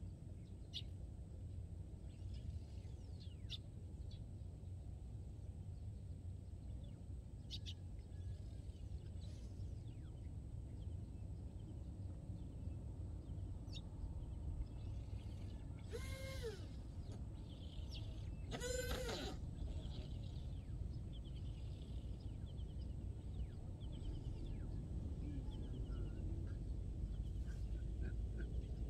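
Outdoor ambience: a steady low rumble with scattered faint bird chirps, and two short wavering animal calls, one about halfway through and another some three seconds later.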